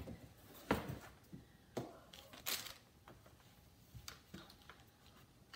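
A laptop being handled on a table: about five separate, short, quiet knocks and rustles as its lid is opened and the protective sheet inside is slid out.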